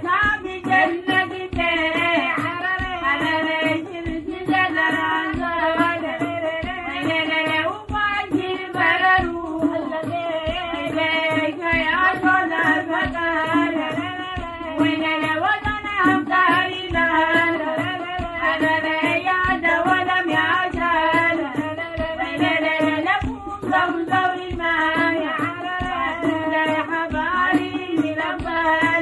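Group of women singing a traditional Harari song together, the melody wavering and ornamented, over a steady beat of a hand drum and clapping.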